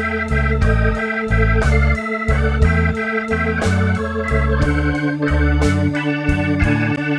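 Instrumental blues background music with an organ-like keyboard, a moving bass line and a steady beat.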